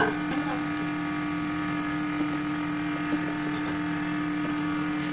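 A steady mechanical hum at one constant pitch, like a running motor.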